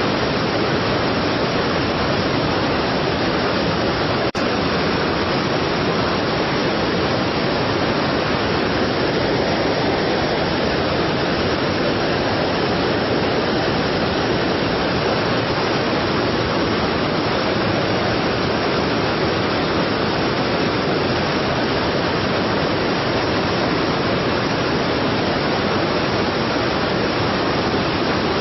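Strong waterfall: a steady, dense rush of falling water, with one brief click about four seconds in.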